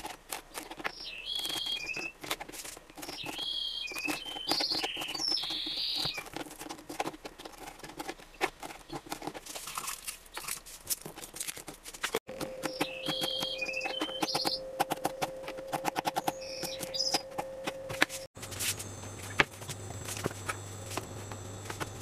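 A knife cutting pork belly on a plastic cutting board: a run of quick cuts and taps on the board. Small bird chirps come through in the background at times, and a low steady hum joins for the last few seconds.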